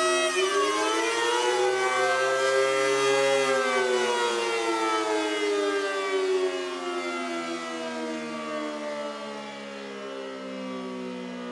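Federal Signal Model 5BT and Darley Model 2 electromechanical warning sirens sounding together: their pitch dips, climbs again for about three seconds, then winds slowly down, growing quieter through the second half.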